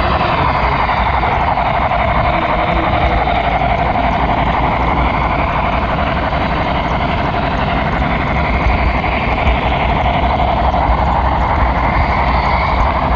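HO scale model train running, heard from on board a flatcar being pushed along by the locomotive: a steady rolling noise of wheels on rails, with a faint whine that slowly rises and falls in pitch.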